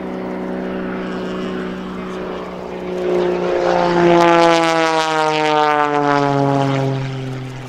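Pitts S-1-11B aerobatic biplane's 300-plus-horsepower piston engine and propeller in a low, fast pass. The drone swells about three seconds in and falls steadily in pitch as the plane goes by, then fades near the end.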